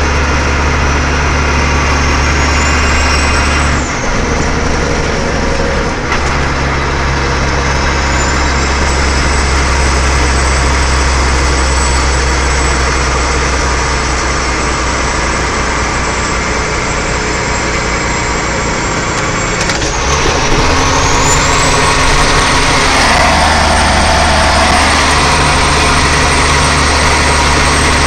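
Truck engine running under way at steady speed, with a faint high whine that rises and falls in pitch a few times. The low engine drone drops out briefly a few times, and the sound gets slightly louder near the end.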